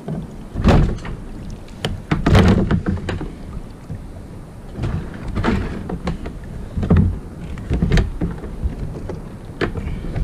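Irregular thumps and knocks on a plastic fishing kayak as fish are stowed through its hull hatch and the hatch lid is handled.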